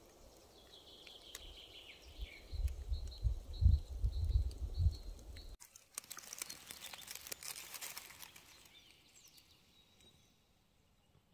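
Forest birdsong, a thin high song, over low thumps and buffeting on the microphone, which are the loudest sound. About halfway there is an abrupt cut to close rustling and crackling of dry grass and twigs as a hand pushes the vegetation around a mushroom.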